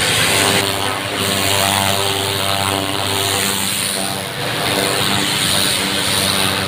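Pressure washer running: a steady motor drone under the loud hiss of the water jet blasting concrete steps.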